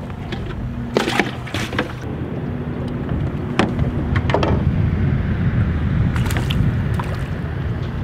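Steady low wind noise on the microphone over water sloshing against a small fishing boat. A few sharp clicks and knocks come through as fish are handled and the rod is cast.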